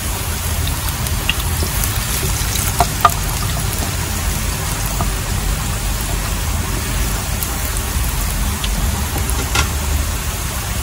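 Steady hiss of rain mixed with dried red chillies and garlic sizzling gently in mustard oil in a wok, with a few light taps of a wooden spatula on the pan.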